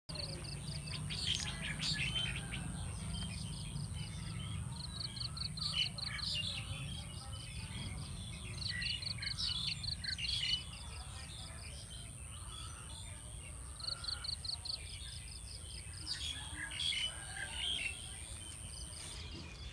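Small birds chirping outdoors, with scattered short calls and several quick, evenly pulsed trills. A thin, steady, high-pitched whine runs underneath and stops shortly before the end, over a low rumble.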